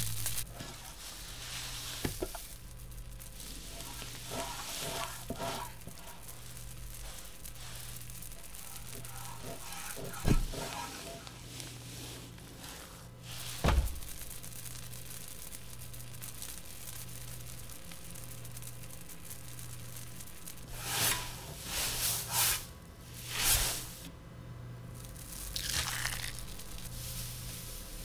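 Soundtrack of a stop-motion animation: a low hum pulsing about once a second under scattered crinkling and rustling sounds, with two dull thumps in the middle and a cluster of louder rustling bursts near the end.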